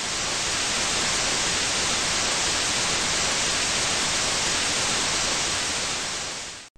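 Steady hiss of TV static (white noise), used as a title transition; it fades out near the end.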